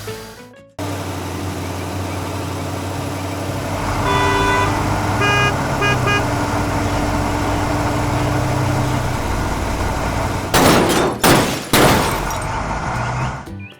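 Cartoon car engine running steadily, with a horn honking about four seconds in: one longer note, then a few short toots. Near the end come three loud bursts of hissing noise.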